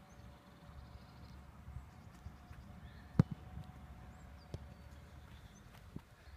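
A football being kicked: one sharp thud about three seconds in, with two fainter knocks later, over a low background rumble.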